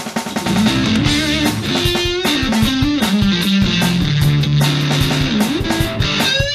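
Electric guitar played through a Boss FZ-5 fuzz pedal: a distorted single-note riff with held notes, slides and vibrato, over a steady drum beat.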